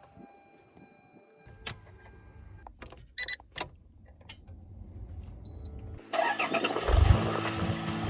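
Toyota Land Cruiser 78 Prado's diesel engine being started: clicks and a steady tone, then a low rumble, then about six seconds in the engine catches and runs, much louder.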